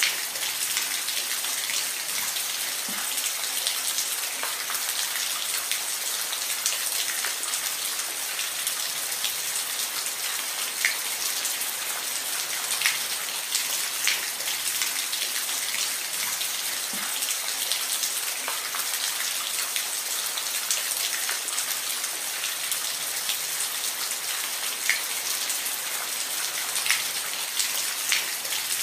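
Steady rain falling, an even hiss with scattered louder individual drops landing close by.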